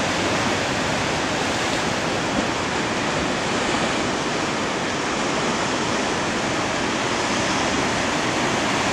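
Steady, unbroken rush of sea surf washing against coastal rocks.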